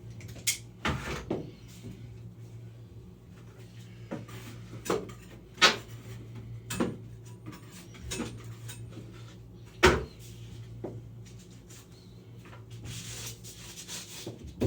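Hand tools, a utility knife and scraper, working loose paper tape and paint off a drywall ceiling: irregular scrapes, clicks and knocks, two of them sharper than the rest, over a steady low hum.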